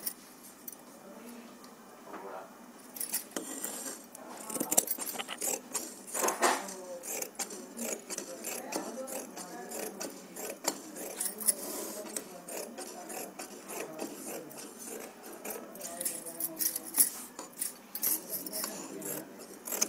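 Scissors cutting through cotton shirt fabric: a run of short, crisp metallic snips, irregular and repeated, starting about three seconds in.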